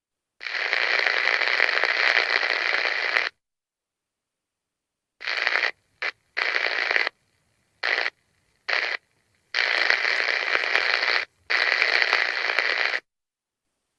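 Walkie-talkie static hiss cutting in and out abruptly: one long burst of about three seconds, then a run of short bursts and two longer ones, with dead silence between them.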